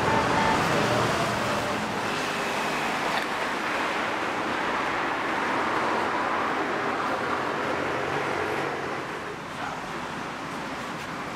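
Steady road traffic noise from passing cars and motorcycles, easing off a little near the end.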